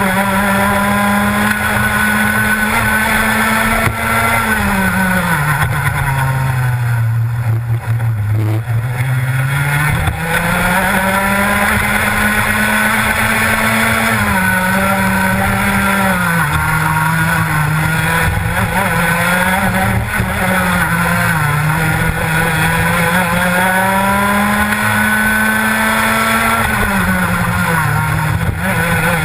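Rotax Max 125cc two-stroke kart engine heard close up from on board, revving hard along the straights and dropping in pitch for the corners: a long drop about four seconds in that climbs back by ten seconds, shorter dips in the middle, and another fall near the end.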